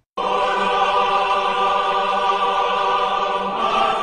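A choir holding one long chord, which shifts slightly about three and a half seconds in.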